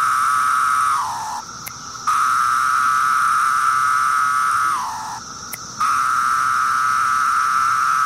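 Recording of 17-year periodical cicadas calling: a steady high-pitched buzz that drops in pitch and fades away about a second in and again near five seconds, each time starting up again after a short pause.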